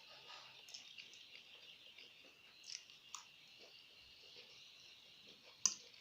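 Close-up eating sounds: scattered wet mouth clicks and chewing of a mouthful, the sharpest click near the end, over a steady faint high hiss.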